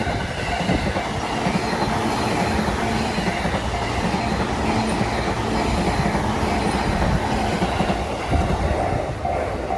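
Electric train passing close through the level crossing, its wheels clattering over the rails in a steady loud rumble. The crossing's warning bell dings in an even repeating rhythm, clearest near the end.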